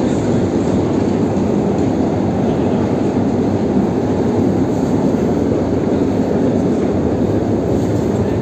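Long metro escalator running: a steady, loud mechanical rumble from the moving steps and drive.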